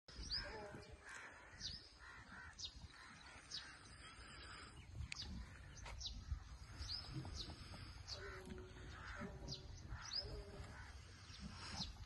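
Birds calling: short high calls that drop in pitch, about one a second, mixed with harsher, rougher calls, over a low steady rumble.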